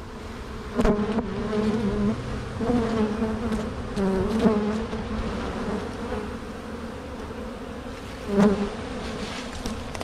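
Honeybees buzzing around an opened hive, the buzz rising and falling as bees fly close past several times. The bees are getting agitated, with increased buzzing.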